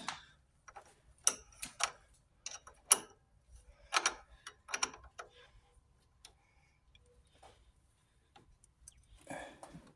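A 1/2-inch wrench working on a lawnmower battery terminal bolt, tightening the cable clamp: a scattered series of sharp clicks and taps, thinning out partway through.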